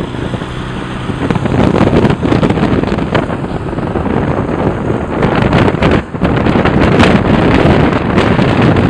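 Wind buffeting the microphone of a camera held at an open car window while driving: a loud, gusty rushing rumble that builds over the first two seconds.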